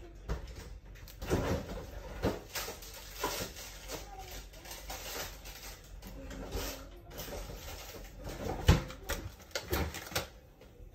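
Indoor household background: faint voices and scattered knocks and clatter. The sharpest knock comes about three-quarters of the way through.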